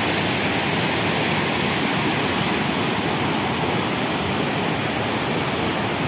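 River water pouring over a concrete weir and churning through white-water rapids below it: a steady, even rushing.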